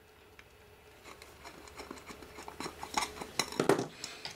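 Light clicking and clinking of small screws and a screwdriver against the plastic housing of a total station during disassembly. It grows busier after about a second and is loudest about three and a half seconds in.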